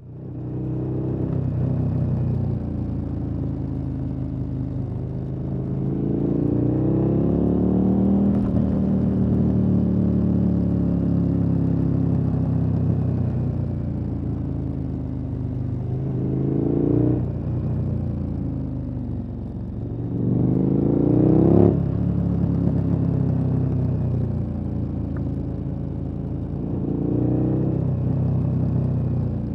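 KTM 1290 Super Adventure S's 1301 cc V-twin running through an aftermarket exhaust, its pitch climbing under throttle several times, with two climbs cut off suddenly as the throttle shuts or a gear is changed, then settling back.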